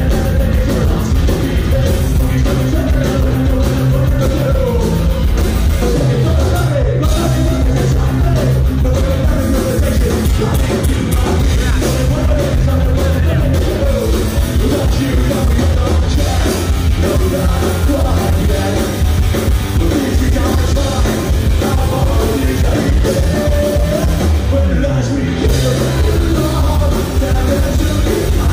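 Live punk rock band playing loud: distorted electric guitars, bass and drums, with a singer shouting the vocals into a microphone.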